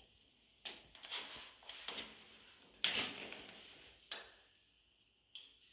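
Plastic bidet sprayer hose and sprayer head being handled and hung in the wall holder: a series of short knocks and scrapes, about six, the loudest about three seconds in.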